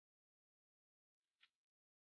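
Near silence, broken by one brief faint sound about a second and a half in.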